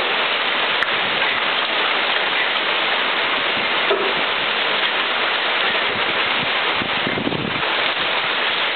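Heavy rain and large hail, about 1.25 inches across, pelting down in a severe thunderstorm: a dense, steady hiss.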